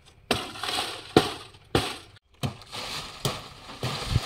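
A billhook (aruval) hacking at palmyra palm fronds and fruit stalks: about six sharp cracking strikes roughly a second apart, with dry rustling of fronds between them.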